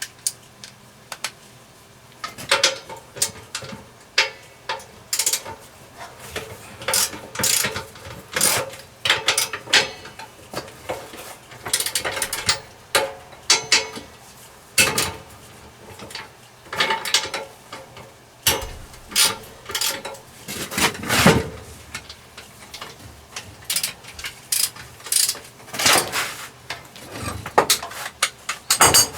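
Metal hand-tool work on a stainless steel washing-machine drum: irregular ratchet-like clicks and sharp metallic knocks, some in quick clusters.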